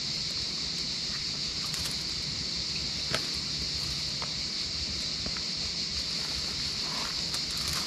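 Cicadas singing in a steady, dense high chorus, with a single sharp click about three seconds in.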